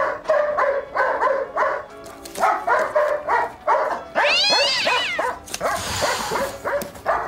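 Alsatian (German shepherd dog) barking repeatedly, about two barks a second, then a long wailing cry that rises and falls in pitch about four seconds in, followed by a short hiss.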